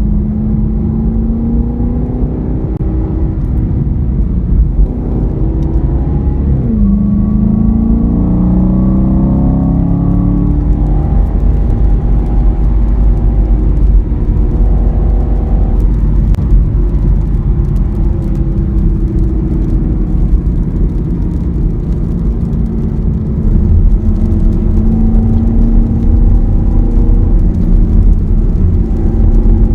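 Chevy SS (Holden VFII Commodore SSV Redline) LS3 6.2-litre V8 heard from inside the cabin while driving on track, with road and tyre rumble underneath. The revs dip sharply about seven seconds in, then climb for several seconds as the car accelerates. After that they settle to a steadier pull.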